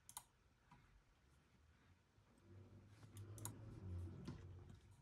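A few faint, sharp clicks from a laptop trackpad, scattered through a near-silent room, with a faint low hum in the second half.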